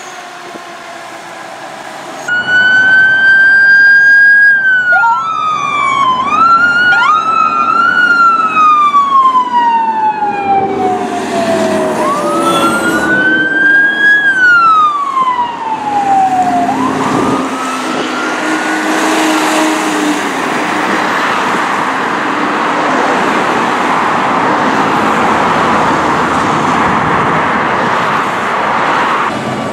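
Fire truck sirens start suddenly about two seconds in. One long tone rises and slowly falls while quick rising whoops overlap it, then it rises and falls once more. A loud steady rush of noise follows as the siren fades.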